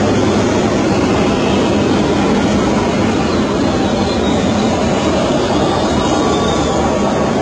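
Airbus A350's Rolls-Royce Trent XWB turbofan engines at climb power after takeoff, a loud, steady jet noise with a deep rumble and no change in level.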